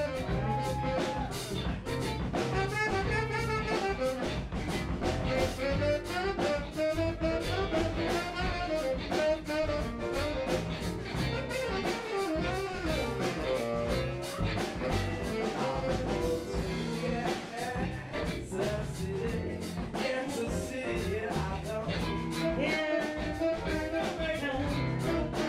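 Live blues band playing steadily: a saxophone section over electric guitar, piano, upright bass and drums, with a regular beat.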